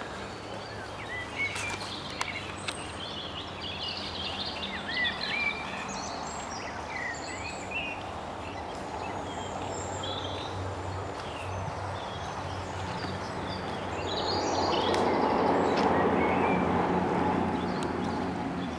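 Small birds singing and chirping in short, rapid calls over a steady low hum. About three-quarters of the way through, a broad rushing noise swells up, the loudest thing heard, then eases off near the end.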